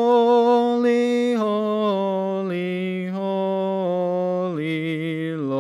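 A man's solo singing voice holding a slow line of long notes that step down in pitch, with vibrato: the closing phrase of a hymn.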